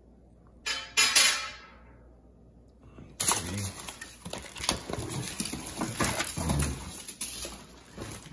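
Plastic wrapping crinkling as grill parts are handled and pulled out of their packing: a dense run of crackles from about three seconds in, after a brief scraping sound about a second in.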